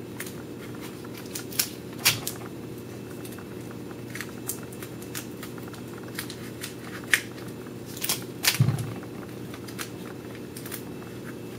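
Scattered crackles and light clicks of paper and sticky tape being handled as a folded-paper toy gun is taped, over a steady low hum, with a duller knock a little past the middle.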